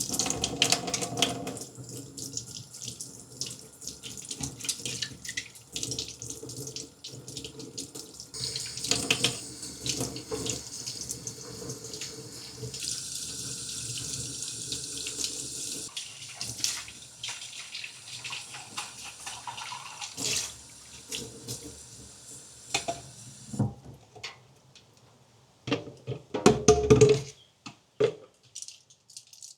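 Tap water running into a sink while paintbrushes are rinsed under it, the stream splashing and changing as the brushes are worked. The water stops near the end, followed by a few loud knocks.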